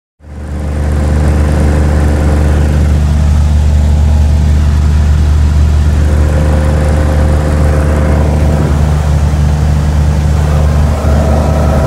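Cessna 175's engine and propeller running as a loud, steady drone with a deep low hum, cutting in suddenly just after the start, with a slight shift in pitch near the end.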